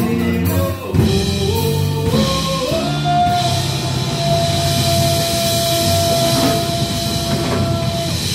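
Live band music: a male singer sings a short phrase, then holds one long note over drum kit, guitar and hand percussion.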